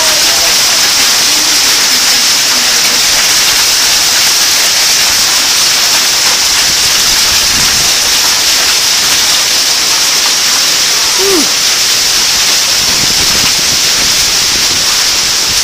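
Torrential thunderstorm rain pouring down, a loud, steady, dense hiss that does not let up.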